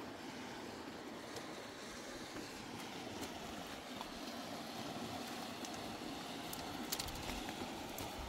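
Steady rushing of wind and water, with a few sharp clicks about seven seconds in.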